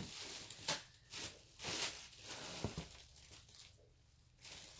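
Rustling and crinkling as clothes and packaging are handled inside a shipping box, with one sharp click a little under three seconds in.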